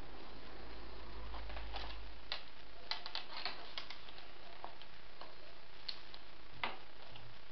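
Willow rods clicking and tapping against each other as they are woven by hand into a round basket base: scattered light, irregular clicks over a steady background hiss, with a sharper click near the end.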